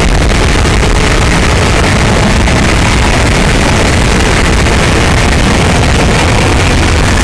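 Loud, harsh distorted noise sound effect: a dense static-like wall of sound with a heavy low rumble, steady and unbroken.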